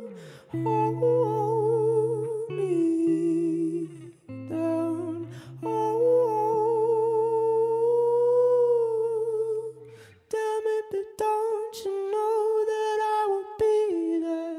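Background music: a held, wavering humming melody over sustained low bass notes that change in steps, with a few clicks near the end.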